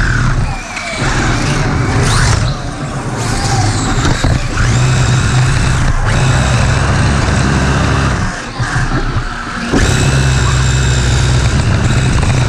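Onboard sound of a 3D-printed OpenRC F1 radio-controlled car driving hard: a loud steady rumble from its drivetrain and wheels on the concrete, under an electric motor whine that rises and falls with the throttle. The motor drops off briefly just under half a second in, and again for about a second around nine seconds in.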